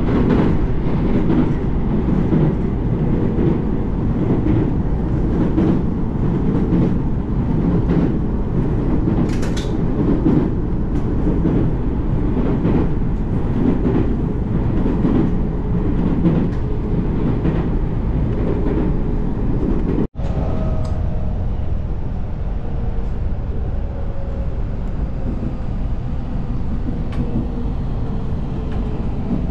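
Electric local train running over a steel truss bridge, heard from inside the carriage: a loud, steady rumble of wheels on rails with scattered clicks. About two-thirds of the way through the sound drops out for an instant and comes back quieter, with a thin whine falling steadily in pitch as the train slows.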